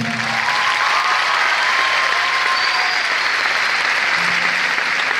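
Large theatre audience applauding, a dense steady clatter of many hands that starts as the spoken dedication ends.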